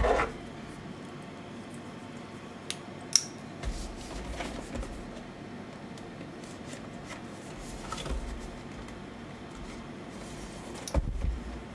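A small cardboard retail box being handled and opened by hand: scattered taps, clicks and scraping, with a sharp click about three seconds in and a few knocks near the end.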